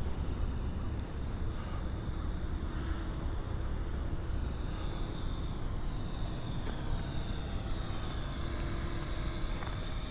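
Parrot Anafi quadcopter's motors and propellers whining in flight, several high thin tones slowly drifting up and down in pitch as it manoeuvres, over a steady low rumble.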